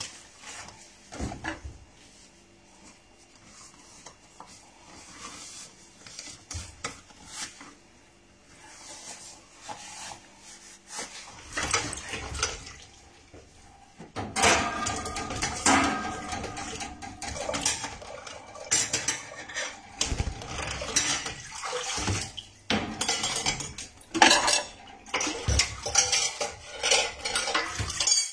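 Dishes, pots and cutlery clattering in a stainless steel sink as they are washed by hand. The knocks are sparse at first, then come thick and fast from about halfway through, some of them ringing.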